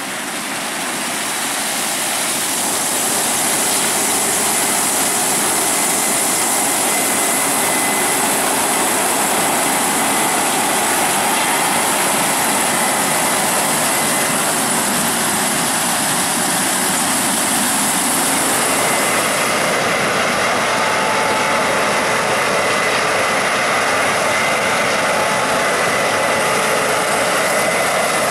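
Combine harvester working in corn: steady heavy mechanical running noise that fades in over the first few seconds, with a high hiss that drops away about twenty seconds in.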